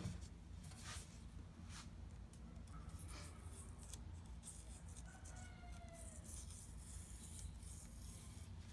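Faint scraping of a knife blade sliding under the bark of a green willow rod, with a few light clicks, over a steady low hum.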